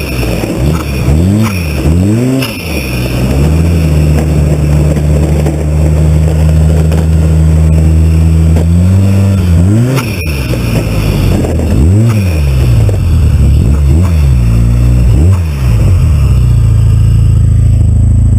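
Turbocharged 2012 Arctic Cat M1100 snowmobile's four-stroke three-cylinder engine revving up and down in quick blips, then held at a steady high pitch for about five seconds. It is blipped again several times and settles to a steadier, lower run near the end.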